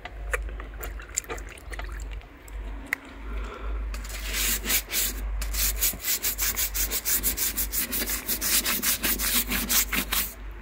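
Stiff plastic scrub brush scrubbing the textured outer wall of a caravan in quick back-and-forth strokes, about five a second, starting about four seconds in. Before that, only a few scattered clicks and knocks.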